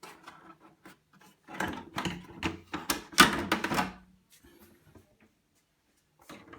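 Knocking and rattling of a hard plastic RC truck body with roof skid rails being handled and turned over, a dense run of clatter starting about one and a half seconds in and lasting a couple of seconds.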